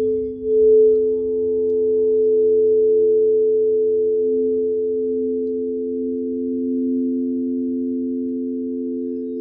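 Several crystal singing bowls ringing together, their long, steady tones overlapping as they are played with a mallet. One bowl swells up about a second in, and a lower one swells around four and a half seconds in.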